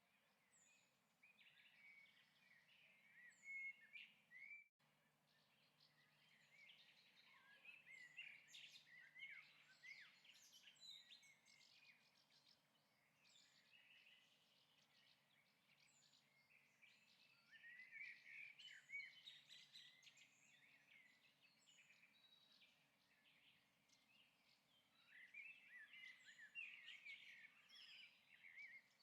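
Faint bird chirping in several bouts over a low background hiss, with the sound cutting out for an instant about five seconds in.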